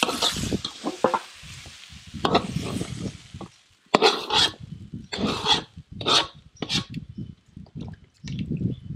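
Metal spatula stirring and scraping curry ingredients frying in a wok, the sizzle fading in the first second. Then a run of about six short, sharp scrapes as the wok is scraped out into a pot of curry.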